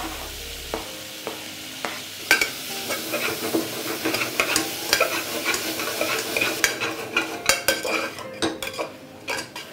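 Vegetables and drumstick pieces sizzling in melted butter in a pressure cooker while a spoon stirs them, scraping and knocking against the pot. The knocks come thicker from about two seconds in, and the sizzle fades about two-thirds of the way through while the stirring goes on.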